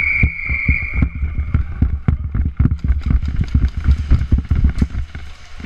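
Dense, irregular thumping and rumble from a jostled, body-worn action camera as its wearer moves quickly, fading near the end. A steady high-pitched tone sounds at the start and stops about a second in.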